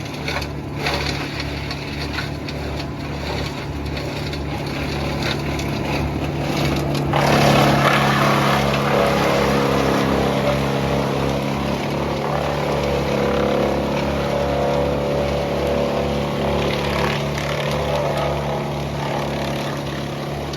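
An engine running steadily, growing louder and harsher about seven seconds in, as if it has come under heavier load.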